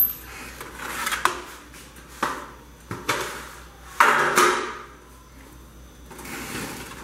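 Oven door dropping open with a sharp clunk, followed by several metallic knocks and scrapes, the loudest about four seconds in.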